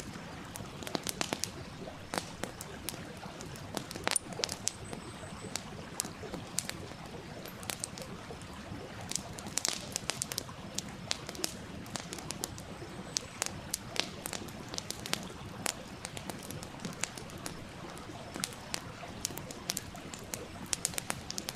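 Wood campfire crackling, with frequent irregular sharp pops and snaps over the steady rush of a running stream.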